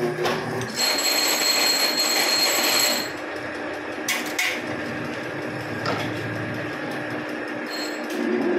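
Metal clinks and knocks from a chuck key working the jaws of a metal lathe's four-jaw chuck while the spindle is stopped, over a steady machine hum. About a second in, a loud whining noise runs for about two seconds, and near the end the lathe motor starts and spins up.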